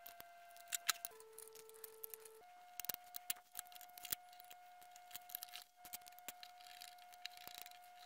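Faint scattered clicks and taps of small plastic parts, screws and a precision screwdriver as the opened Xbox One power brick's plastic case is fitted and screwed back together.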